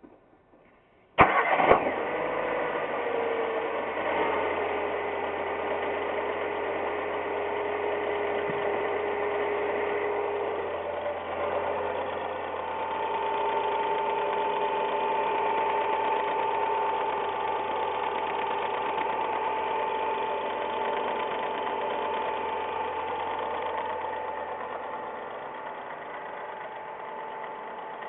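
Ford Ka engine started from cold: it catches about a second in and settles into a steady idle that eases down near the end. The owner reports a tek-tek-tek ticking from this engine only while it is cold, whose cause mechanics disagree on.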